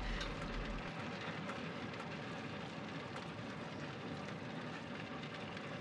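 Steady rushing noise with faint light rattles and ticks, heard from inside a moving truck's cab. A deep low rumble drops away about a second in.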